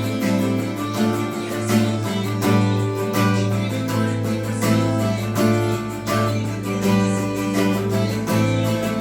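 Acoustic guitar played as an instrumental melody, plucked notes in a steady rhythm over a low bass note that rings on underneath.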